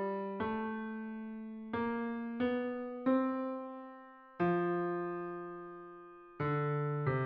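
Computer-played piano sounding a four-part choral hymn from a score, slow chords struck one at a time and fading between them, about seven in all. It is a part-rehearsal track for the basses.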